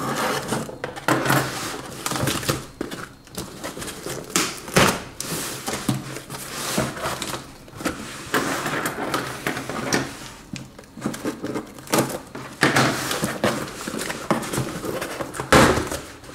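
A shipping box being opened by hand: cardboard and packing rustling and scraping, broken by several sharp knocks, the loudest near the end.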